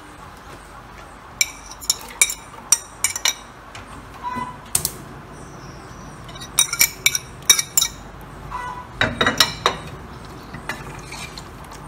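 A metal fork clinking and scraping on a ceramic plate as chopped herbs are pushed off into an aluminium pressure cooker, with a wooden spoon knocking in the pot as the stew is stirred. The clinks are sharp and ringing, coming in small clusters, the busiest just past halfway and again at about three-quarters of the way through.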